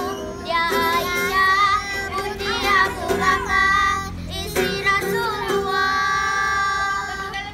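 Children singing a song together to ukulele accompaniment, ending on a long held note.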